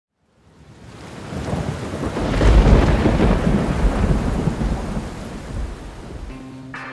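A thunder rumble with a hiss like rain. It swells out of silence over about two seconds, peaks, then slowly fades. Electric guitar music comes in near the end.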